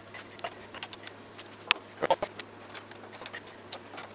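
Scattered light clicks and taps of a hex key and the change gears being handled while a mini lathe's gear train is reassembled, with one sharper click a little under two seconds in. A steady low hum runs underneath.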